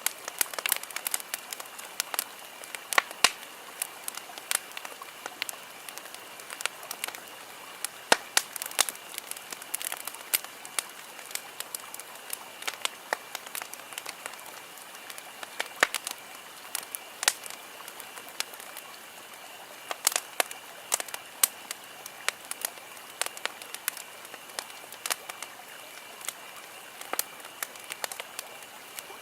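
Campfire crackling: irregular sharp pops and snaps, several a second, over a steady hiss.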